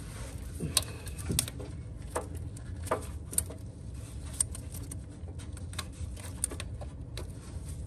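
Scattered sharp clicks and taps of an oil cooler line's end fitting knocking against the metal fittings of the oil sandwich plate as it is worked into place, over a low steady hum.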